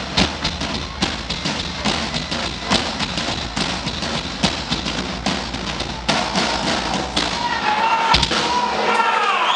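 Floor tom struck hard with drumsticks in loose, irregular hits, a few a second, over loud live-band stage noise. Near the end comes one heavier low thud.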